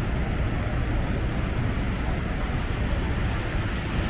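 Steady city street noise: a constant low traffic rumble with no separate events standing out.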